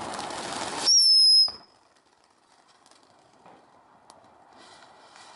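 Ground firework fountain hissing as it sprays sparks, then a loud, short, high whistle about a second in, falling slightly in pitch over half a second. A fainter hiss builds again near the end.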